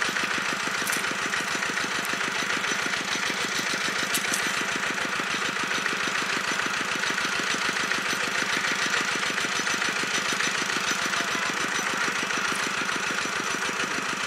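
Small engine of a water pump draining the pond, running steadily with a rapid, even beat.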